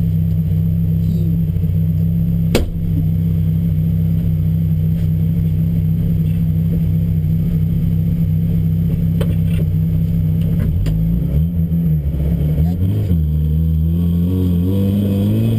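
Ford Fiesta XR2 rally car's engine idling steadily, heard from inside the cabin, with one sharp click a few seconds in. About eleven seconds in the revs start to rise and fall several times.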